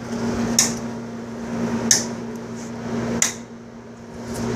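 Hammer blows on steel plug-and-feather wedges set in a drilled line along a stone block, three sharp strikes about a second and a quarter apart, driving the wedges to split the stone by hand.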